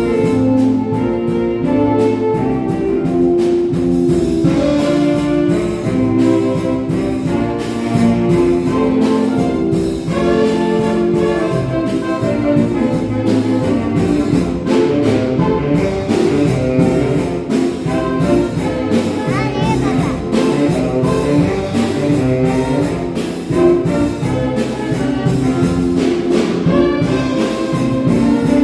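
Orchestra with a prominent brass section, trumpets and trombones among it, playing an instrumental tune over a steady beat.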